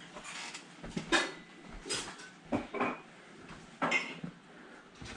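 About five sharp knocks and clinks of small objects being handled, spread over a few seconds, over a faint steady low hum.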